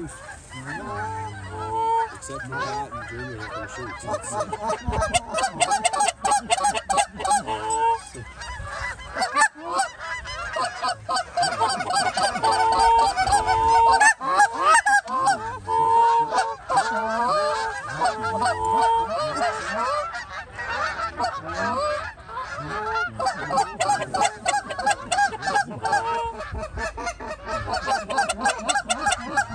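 A large flock of Canada geese honking, many calls overlapping without a break, with clicking sounds mixed in and the calling loudest about halfway through.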